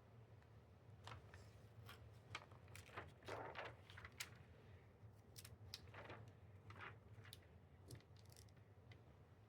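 Faint scattered clicks and light rustles of small hand work: rhinestones being handled with tweezers and transfer tape over a template, over a steady low hum.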